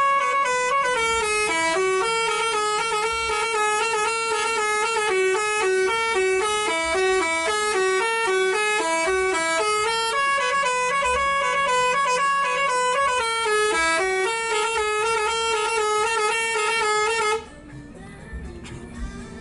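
Basuri 'telolet' musical bus horn playing a tune of short stepped notes, then cutting off suddenly near the end.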